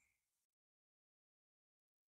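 Near silence: the sound track is all but muted.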